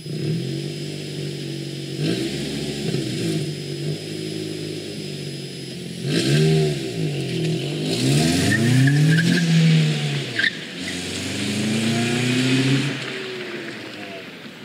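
Nissan Sentra SE-R Spec V's 2.5-litre four-cylinder engine revving as the car accelerates away, the pitch rising and falling several times, then fading as it gets farther off near the end.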